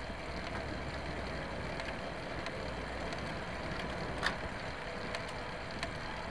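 Steady wind and tyre-on-road noise of a road bike climbing in a racing group, with one faint click about four seconds in.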